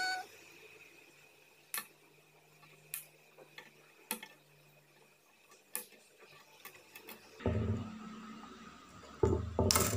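A few scattered light clicks as a plastic sprue of robot-kit parts is handled, then from about seven seconds in louder rubbing and knocking as parts are cut from the frame with scissors, with a sharp click near the end.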